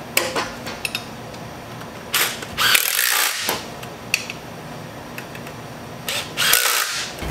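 Ratchet wrench turning the motor-mount bolts on the side of a small-block Chevrolet V8 block, in several short ratcheting bursts, the longest near the middle.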